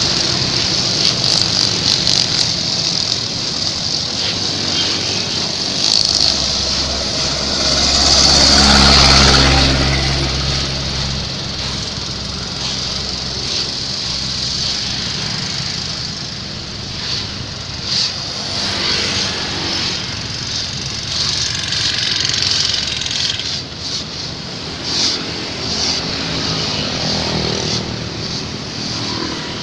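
Backpack brush cutters with four-stroke Honda GX engines running, spinning nylon line with a steady high whine, mixed with passing road traffic. A vehicle passing close swells up loudly about eight seconds in.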